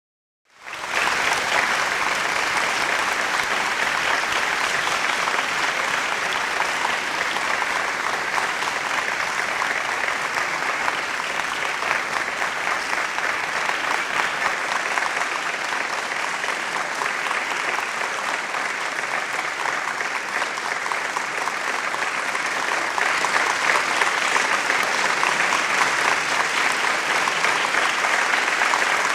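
Large crowd applauding: dense, even clapping that comes in quickly about half a second in, holds steady, and grows a little louder near the end.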